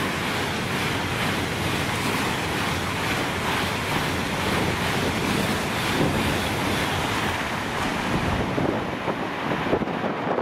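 Eurostar high-speed train running through the station at speed without stopping: a loud, steady rush of air and rolling noise, easing off near the end.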